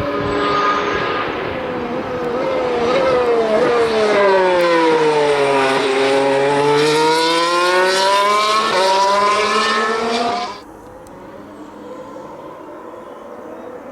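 Mercedes-AMG F1 W08 Formula 1 car's 1.6-litre turbocharged V6 hybrid engine. Its note falls as the car slows, stepping down through a few quick downshifts, then climbs again under acceleration with quick upshifts. About ten seconds in, the loud engine sound cuts off suddenly, leaving a much fainter sound.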